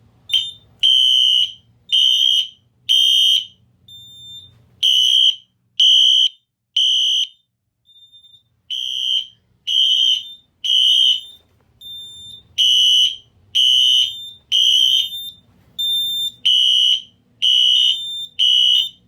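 Wheelock fire alarm horns sounding the temporal three evacuation pattern, triggered by the fire panel's drill mode: three loud, high half-second beeps, a pause of about a second and a half, then three more, repeating. A thinner, higher beep from a second device sounds in some of the pauses.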